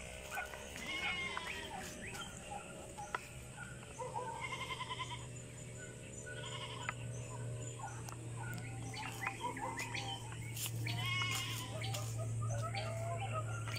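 Animal calls: many short, wavering cries, some overlapping, over a steady low hum that starts a few seconds in.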